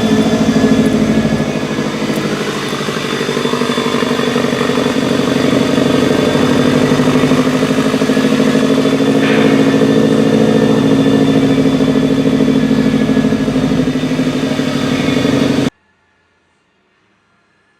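2014 Subaru WRX's turbocharged EJ255 flat-four engine idling with a fine, uneven pulsing, the rough idle being diagnosed. The sound cuts off abruptly near the end.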